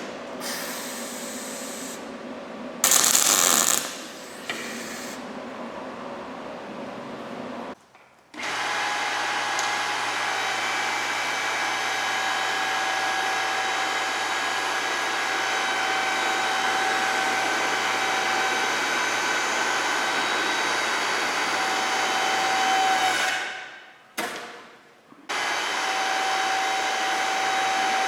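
Several seconds of workshop noise with one loud, brief noisy burst, then an electric power tool running steadily with a whine; it cuts out for a moment a few seconds before the end and starts up again.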